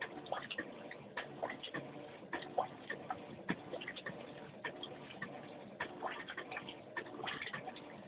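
Electrolux LTE09 top-loading washing machine washing a heavy load in a high water level: the clothes turn in the tub with a steady low churning and many irregular clicks and knocks, several a second.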